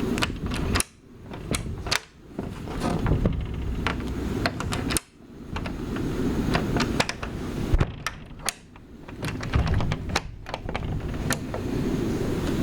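Night shoreline ambience: a loud, uneven low rumble of waves with many sharp, irregular clicks over it. The rumble cuts out suddenly several times and comes back.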